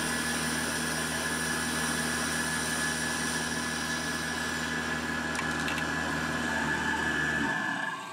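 Tormach 8L lathe running while a small grooving tool parts a brass bearing off the brass bar stock: a steady machining whine with a held tone. The sound drops away near the end as the cut-off finishes.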